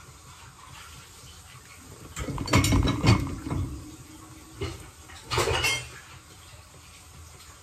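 Ceramic dishes clattering and knocking against the wire tines of a dishwasher's lower rack as they are loaded, in a cluster of knocks about two to three and a half seconds in and a second, shorter clatter about five and a half seconds in.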